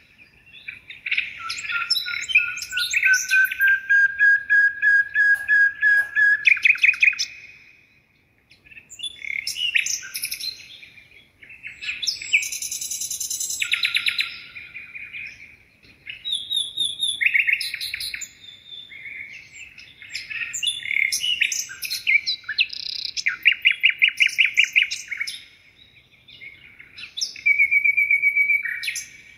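A songbird singing in phrases of fast trills and chirps, separated by short pauses. Early on there is one long whistled note that rises slightly.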